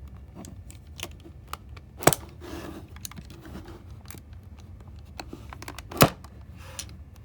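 Lego plastic pieces clicking and tapping as a tool is poked into a hole in a Lego puzzle box, with two sharper clacks, one about two seconds in and one about six seconds in.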